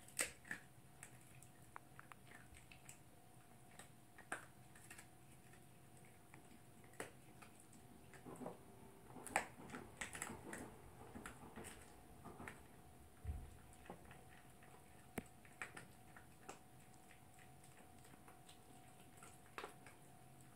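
Toy poodle chewing a dental chew on a plastic mesh toilet tray: faint, scattered clicks and crunches, busiest around the middle.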